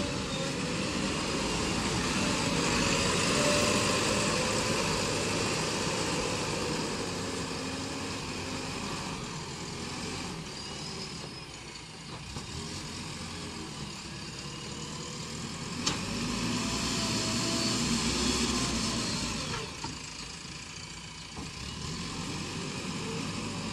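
Diesel engine of a JCB backhoe loader running, swelling louder twice as it works, with one sharp click partway through.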